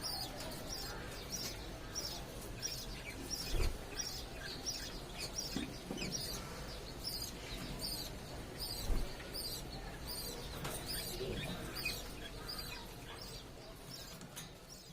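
Parrots chirping: short, high, falling chirps repeated about twice a second, with a low thump twice. The sound fades near the end.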